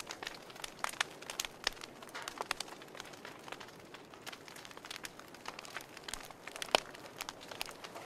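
Wood fire crackling, with irregular sharp pops over a soft hiss and one louder pop near the end.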